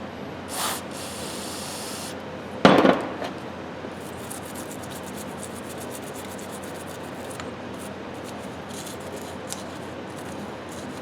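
Rubbing and scrubbing grease off the metal parts of an old Craftsman ratchet, a scratchy scraping sound. A hiss lasts about a second and a half near the start, and a loud clunk comes about three seconds in.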